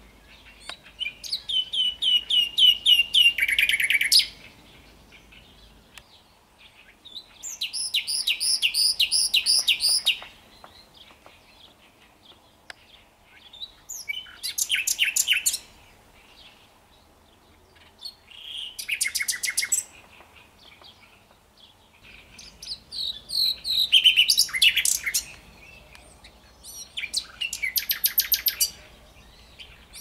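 Common nightingale singing: about six separate phrases, each a second or three long, of fast repeated notes and trills, varying from phrase to phrase, with pauses of a few seconds between them.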